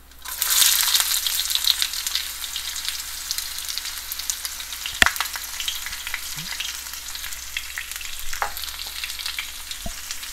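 Chopped red onion dropped into hot oil and mustard seeds in a non-stick wok: a sudden loud sizzle that settles into steady frying, with scattered sharp pops and crackles.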